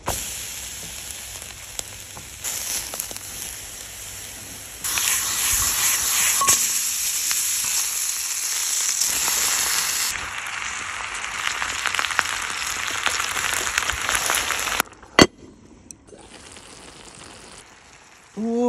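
Napa cabbage, leek and wagyu beef slices sizzling in a cast-iron sukiyaki pan over charcoal, a steady dense frying hiss that jumps louder and softer at several cuts. A single sharp click comes about 15 seconds in, after which the sizzle is much quieter.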